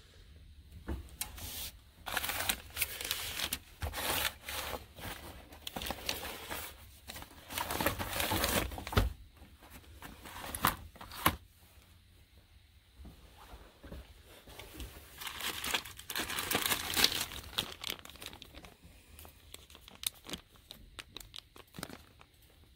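Crinkling, rustling handling noise in several bursts, with a few sharp clicks among them.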